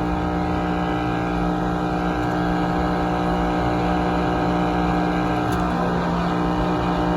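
A steady buzzing tone transmitted over a CB radio channel, held without change for several seconds. It cuts off abruptly shortly after.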